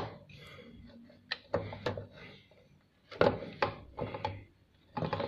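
A few light clicks and knocks with some rubbing as hands work a new rubber drive belt onto the pulleys of a Toyota 6602 sewing machine. A few muttered words come after about three seconds.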